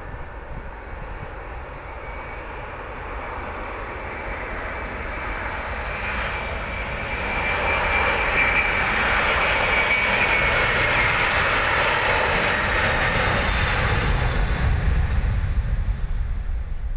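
Airliner's engines passing close by. The sound grows louder over several seconds and holds loud through the middle, with a high whine that drops slightly in pitch. A deep rumble swells near the end as the plane goes past.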